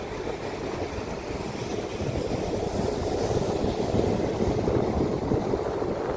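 Steady rushing noise of wind on the microphone while riding a fatbike, a little louder in the middle.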